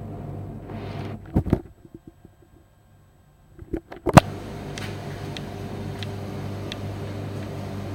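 Commercial Primus tumble dryer running with a steady low hum. About a second and a half in there are a couple of knocks and the hum drops away for about two seconds. A loud knock comes about four seconds in, then the steady hum returns with scattered light ticks.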